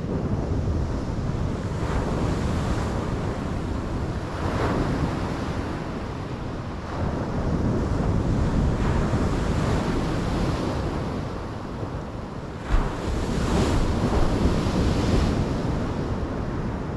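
Surf breaking on a sandy beach, the wash rising and falling in swells every few seconds, with wind rumbling on the microphone. A brief low thump comes about two-thirds of the way in.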